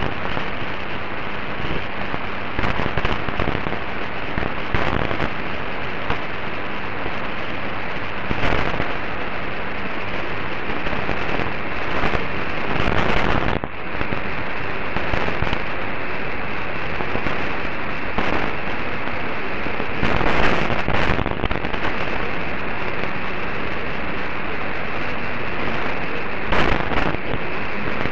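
Medium-wave AM reception on 954 kHz through an Airspy HF+ Discovery software-defined radio: a steady hiss of static broken by frequent crackles, with the weak distant station buried in the noise.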